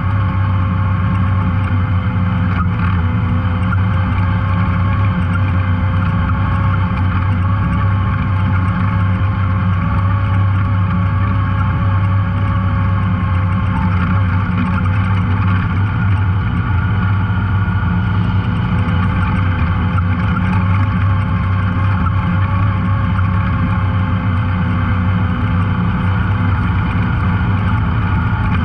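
Off-road vehicle's engine running at a fairly steady speed, heard from on board while riding a trail, its pitch wavering only slightly.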